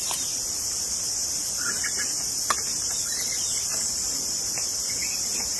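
Steady, high-pitched chorus of insects shrilling continuously, with a single sharp click about two and a half seconds in.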